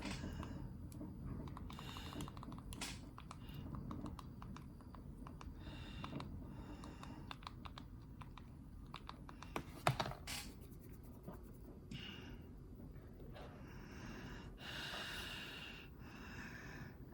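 Ceiling fan running with a steady low whir, overlaid with irregular light clicks and a few short bursts of hiss.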